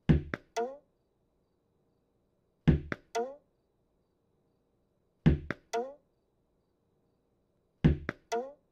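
Cartoon sound effect of a tennis ball being thrown against a wall, repeated four times about every two and a half seconds. Each throw is a thump, a sharp smack and a short ringing note.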